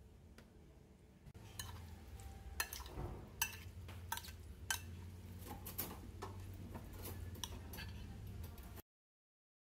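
Metal spoon stirring chunks of pork and fried tofu in a glass mixing bowl, with irregular clinks and scrapes of the spoon against the glass starting about a second in. The sound cuts off abruptly about a second before the end.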